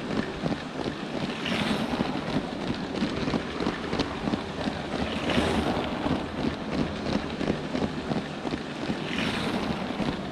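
LEGO Power Functions train motor running and the train's plastic wheels rattling over LEGO track, heard from on board the moving train, with many small clicks from the track joints. The noise swells three times, about four seconds apart.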